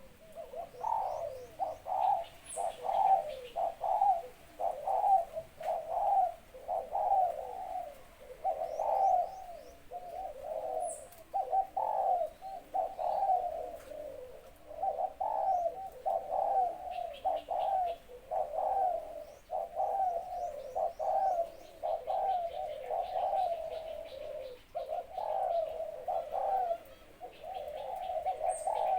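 Male dove cooing continuously in a small, clear voice, the coo phrases following one another about once a second. Faint chirps of small birds come in behind it.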